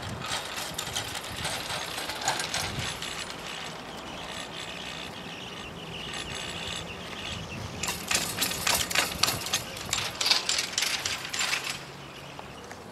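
Chairlift running up the line: fast, irregular clicking and rattling as the haul cable and chair grips roll over a tower's sheave wheels, in two spells, about three seconds at the start and again from about eight seconds until it stops abruptly near twelve seconds.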